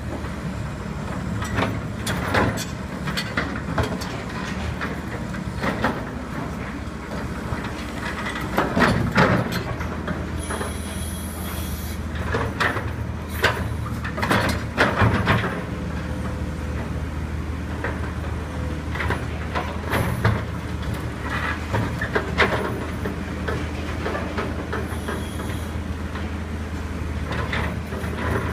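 Tracked excavator's diesel engine running steadily while its bucket pries and drags an old steel rail out of broken pavement, with repeated clanks and scraping of metal on concrete and asphalt. A high metallic screech sounds about ten seconds in.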